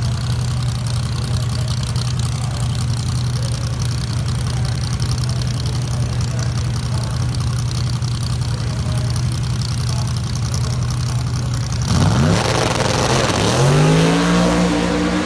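An LS V8 engine in a car idling steadily, then about twelve seconds in it revs up louder, its pitch dipping and rising before holding higher as the car accelerates.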